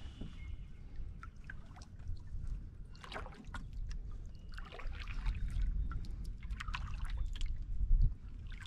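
Water splashing and trickling around a canoe as it is paddled, in short clusters a second or two apart, over a steady low wind rumble on the microphone. A louder low thump comes near the end.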